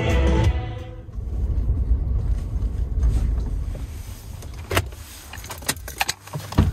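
Background music ending about a second in, then the low steady rumble of a Ford F-150 pickup's engine running, heard from inside the cab. Several sharp clicks and knocks come near the end.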